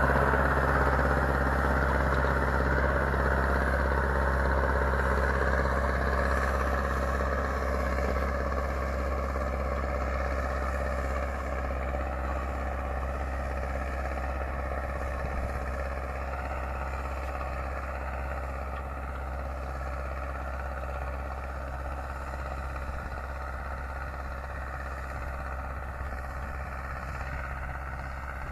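Zetor 7745 Turbo tractor's four-cylinder turbo-diesel engine running steadily under load while pulling a three-furrow plough, slowly growing fainter as the tractor moves away.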